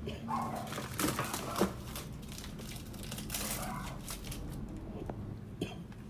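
Rustling and crinkling handling noises in short bursts, with a few sharp clicks.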